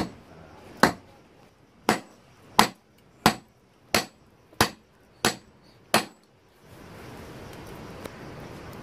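A series of about nine sharp knocks, roughly one every 0.7 seconds, stopping about six seconds in. A steady hiss then comes in.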